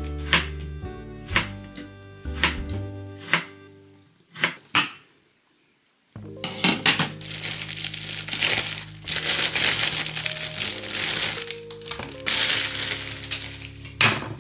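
A plastic bread bag crinkling and rustling as it is opened, from about six seconds in until near the end, over background music. Earlier, a few sharp knocks sound on a wooden cutting board, and two more come while the music briefly drops out.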